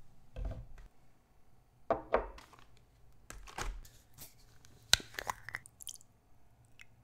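Close-up mukbang eating sounds: irregular crunching and clicking of chewing crunchy food, with one sharp click about five seconds in.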